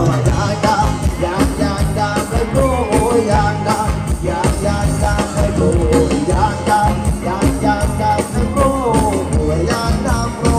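Live Thai ramwong dance band playing with a steady drum beat and a sung melody over it.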